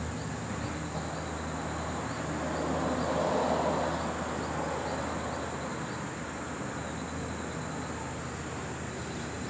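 Outdoor ambience of insects droning steadily at a high pitch over a low steady hum, with a broad rushing swell about three to four seconds in.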